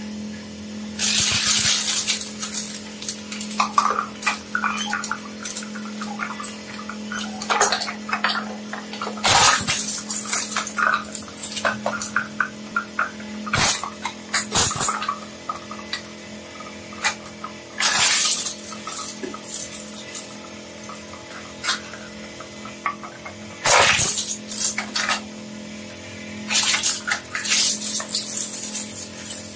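Twin-shaft shredder running with a steady hum while its interlocking cutter discs crush and tear plastic, a clear plastic bottle and a clear plastic clamshell container among it. Loud bursts of crackling and crunching come every few seconds as each piece is bitten, with a few single sharp snaps in between.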